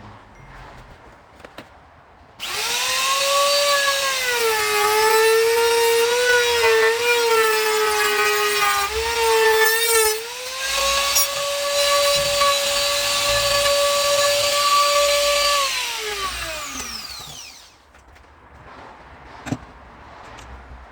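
Palm router cutting a hinge recess in a hardwood door through a hinge jig. It starts abruptly a couple of seconds in, and its high whine sags in pitch under the cut, then rises again as the load comes off. Near the end it is switched off and winds down with a falling pitch, followed by a single click.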